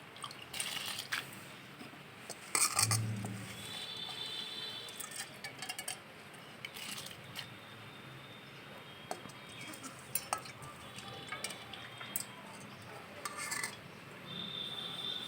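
Metal utensils clinking and clattering against a cooking pot as soaked biryani rice is tipped into boiling water, with scattered clicks and several louder clatters.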